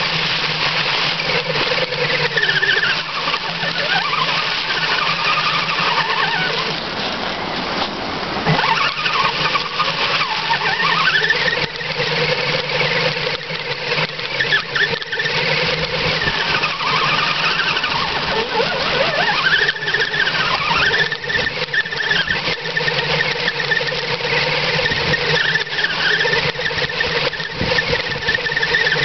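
Electric motor and drivetrain gears of an Axial RC rock crawler whining, the pitch rising and falling with the throttle as it crawls, over a crackle of dry leaves.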